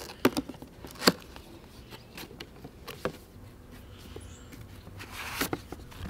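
Cardboard box being opened by hand: a few sharp clicks and taps from the flaps, then a brief scraping rustle near the end as the cardboard packing insert is drawn out.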